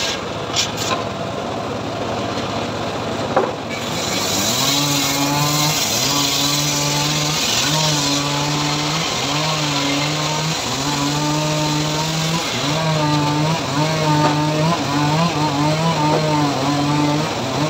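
A homemade engine-driven circular sawmill (gergaji srekel) ripping a mahogany log into planks. A loud hiss of blade through wood gives way after about four seconds to a pitched hum that dips and recovers roughly once a second as the blade takes the load.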